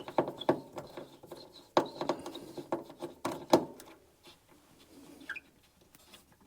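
Phillips screwdriver clicking and knocking against the screws and metal under a microwave: a string of sharp clicks and knocks over the first three and a half seconds, then a few faint squeaks about five seconds in.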